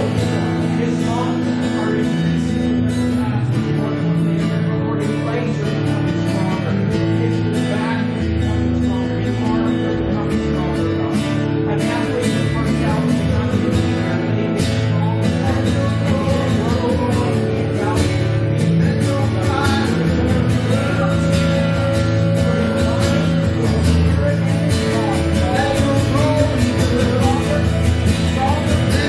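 Music with guitar, chords held steadily throughout.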